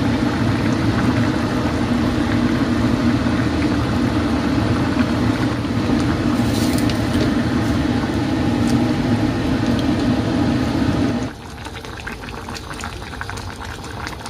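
A loud steady mechanical drone with a low hum, over the stew simmering in its pot; the drone cuts off suddenly about 11 seconds in, leaving quieter bubbling and light clicks.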